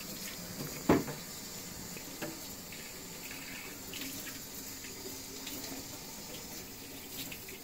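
Tap water running steadily into a sink as coffee grounds are rinsed out of a refillable coffee-pod filter cup. A sharp knock sounds about a second in, and a lighter one a little over a second later.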